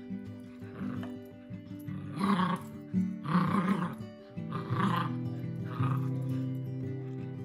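Background music with held chords and a short phrase repeating about once a second.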